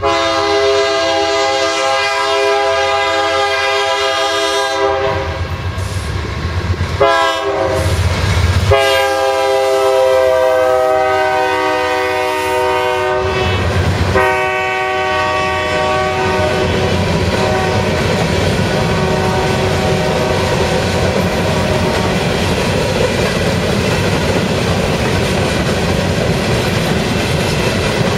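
A BNSF freight diesel's multi-chime air horn sounds several blasts for a road crossing, the pitch dropping on the last long blast as the locomotive passes. About fifteen seconds in, the horn gives way to the steady clatter and rumble of empty hopper cars rolling by on the rails.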